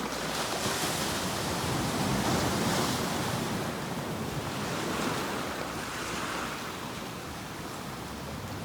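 Sea waves breaking and washing on the shore, a continuous rush of surf that swells in the first few seconds and eases off toward the end.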